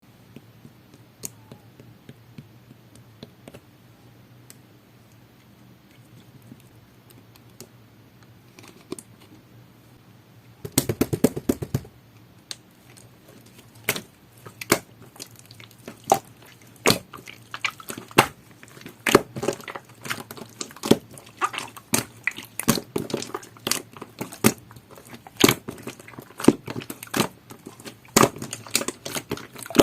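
Clear slime topped with rainbow clay being pressed and squished by hand. It is quiet at first with a few faint clicks, then a dense cluster of sticky crackles comes about eleven seconds in, followed by a steady run of sharp clicks and pops.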